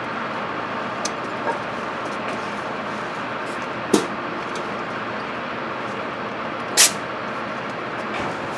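Steady background rush, broken by two sharp knocks about four and seven seconds in, the second louder.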